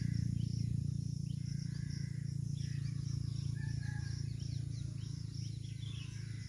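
Outdoor ambience: small birds chirping in many short, falling notes, over a steady low hum and a faint, steady high insect drone.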